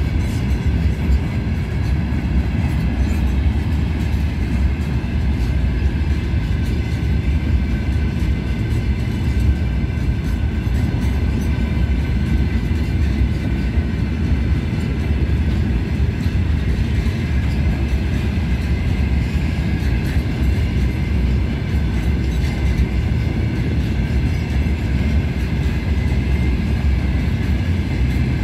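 Heavy iron ore pellet train's open gondola wagons rolling past close by: a steady low rumble of steel wheels on rail, with faint high steady tones from the wheels above it.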